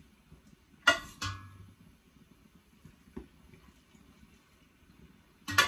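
Metal ladle clinking against the rims of the cookware while boiling water is ladled into jars of tomatoes. There are two sharp ringing clinks about a second in, a faint tick near three seconds, and another loud clink near the end.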